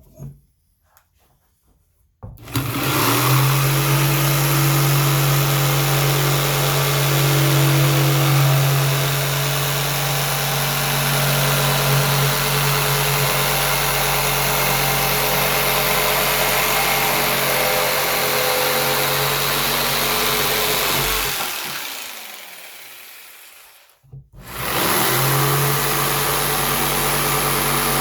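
Black & Decker BDEJS300C jigsaw starting about two seconds in and running at speed, its blade cutting a curve in a pine board. Near the end it winds down to a stop, then starts up again.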